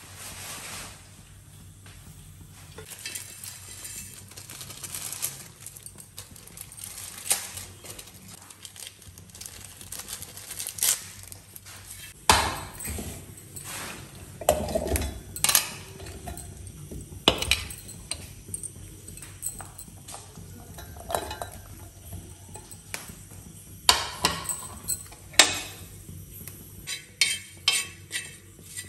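Irregular clinks and clanks of metal kitchenware: steel pots, a steel mixer-grinder jar and a metal spoon on an iron tawa, some with a short ring. The clinks come thicker near the end.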